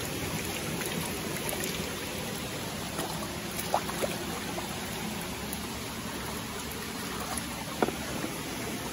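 A clear, shallow river flowing, a steady rush of running water. Two brief plops of water stand out, about four seconds in and again near the end.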